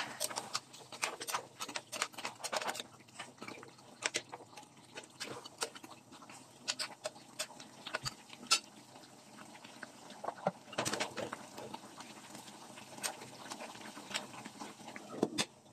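Metal spatula stirring chicken in a simmering cream sauce in a pot: irregular wet clicks, taps and scrapes of the spatula against the pan.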